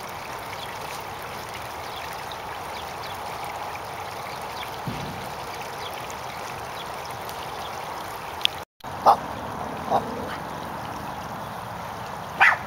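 Steady trickle of running water. After a brief dropout about two-thirds of the way through, three short loud animal calls sound near the end.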